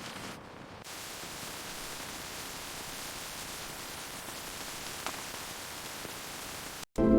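Steady hissing noise with no distinct events, like static, which cuts off briefly near the end as music begins.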